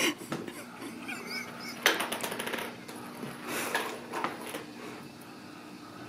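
Scattered light knocks and clicks, with a short clattering rattle about two seconds in and a softer scuffle near four seconds, then quieter.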